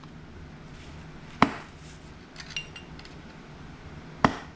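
Two sharp hammer blows on a hand impact driver, about three seconds apart, loosening fasteners on a motorcycle engine's case, with light metal clinks and a brief ring between them.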